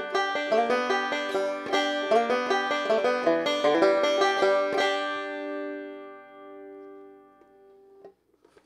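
Resonator banjo picked fast with Ernie Ball picks, about five or six notes a second, heard through a Shure SM58 microphone. About five seconds in, the picking stops and the last notes ring and fade, and they are cut off at about eight seconds.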